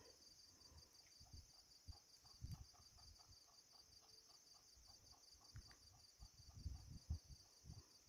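Near silence with a faint, steady high insect chorus, soft low bumps on the microphone, and a faint quick ticking call for a few seconds in the middle.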